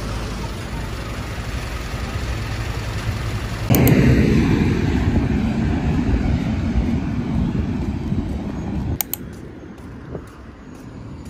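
Steady low rumble of street traffic, then about four seconds in a sudden, louder rumble of wind buffeting the microphone outdoors. It eases off gradually and drops away near the end to quieter outdoor noise.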